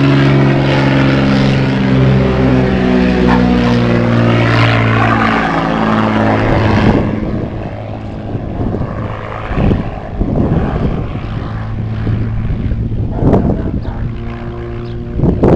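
Agricultural crop-duster airplane's propeller engine passing low overhead, its pitch falling steadily as it goes by. About seven seconds in, the engine drone turns steadier and lower, with a few sudden bumps.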